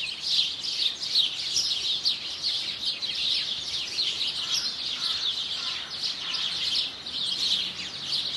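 Many small songbirds chirping at once, a dense run of short, high, quick chirps with no pause.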